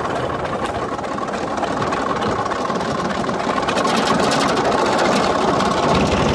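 Massey Ferguson 135 tractor engine running steadily.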